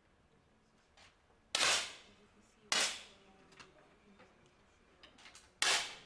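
Three sharp pops of 10 m air pistols being fired, about 1.2 s and then 3 s apart, each with a short reverberant tail.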